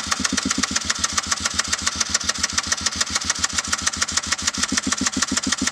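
Electric starter cranking a cold KTM 300 XC-W two-stroke engine: a rapid, even chugging of compression strokes under a bright starter whine, with the engine not catching.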